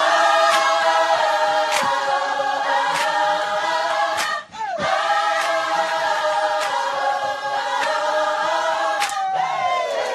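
Several voices singing long held chords, choir-like, in two stretches with a short break about halfway, and a note sliding downward near the end.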